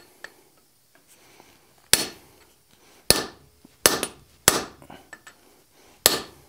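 Hand hammer striking a punch set on a red-hot half-inch round steel bar on the anvil, driving in a dimple: five sharp blows, unevenly spaced, each with a short metallic ring.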